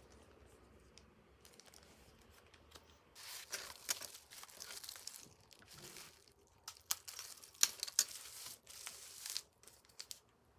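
Merchandise packaging being handled and torn open: crinkling and tearing, in two louder stretches about three seconds in and from about seven to nine seconds, with sharp clicks.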